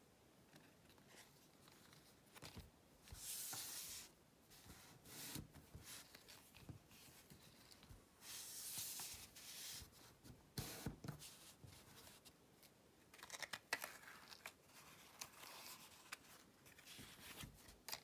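Paper card rustling and sliding as a pop-up card is handled and folded flat, with scattered light clicks and taps of card on the table. Two longer rustles come about three seconds in and about eight seconds in.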